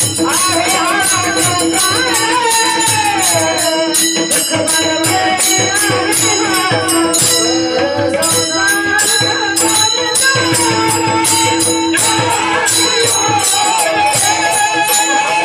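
Singing with accompaniment: a voice carries a winding, ornamented melody over a steady held drone note, with hand percussion keeping an even beat.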